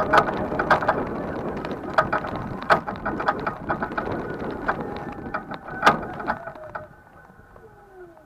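S12X Vita Monster electric mobility scooter driving over rough ground: a steady motor whine under a dense crackle of sharp clicks and rattles from the wheels and frame. It fades out about seven seconds in, the whine dropping in pitch as it slows.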